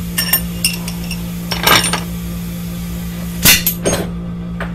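Metal clinks, a scrape and a clank from a Subaru EJ253 cylinder head and its bolts being handled as the head is worked off the engine block: a few sharp ringing clinks in the first second, a scrape, then the loudest clank about three and a half seconds in, followed by a couple of lighter knocks.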